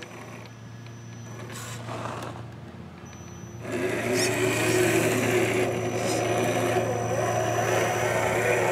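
Electric motor and gear drivetrain of an RC4WD Trail Finder 2 scale crawler whining as it crawls over dirt, the pitch rising and falling with the throttle. It gets louder from about three and a half seconds in.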